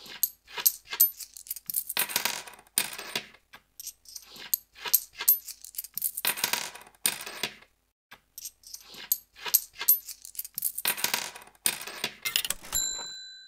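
Coins clattering and jingling in repeated bursts, like a casino payout sound effect, then a single bright ringing ding near the end.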